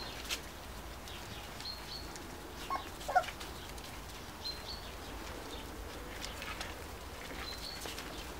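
Puppies and dogs moving about, with one short high squeak from a puppy about three seconds in. A small bird chirps briefly a few times in the background.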